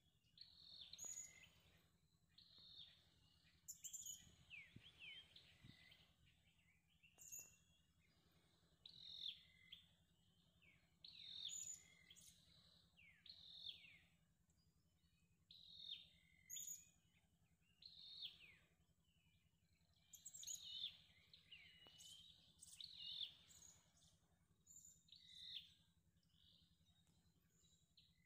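Faint birdsong: short chirping phrases with quick falling notes, repeating every second or two.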